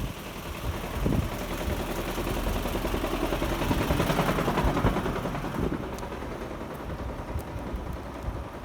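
A vehicle passing, its noise swelling to a peak about four seconds in and then fading, with low wind gusts on the microphone.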